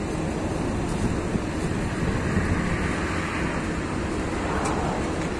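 Cabin noise inside a LiAZ 6213.22 articulated city bus: the diesel engine hums steadily under road and ventilation noise, with a swell of hiss about two to three seconds in.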